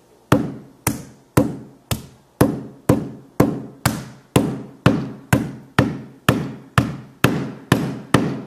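Hammer striking an iPhone 5C on a table over and over, about two blows a second, each a sharp knock with a short ringing decay. The blows are cracking the phone's glass screen further.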